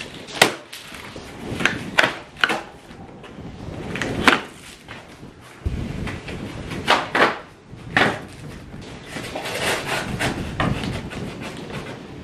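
Large cardboard shipping box being opened by hand: a series of sharp rips and thumps as the flaps are pulled and torn open, then a longer stretch of cardboard rasping and tearing near the end.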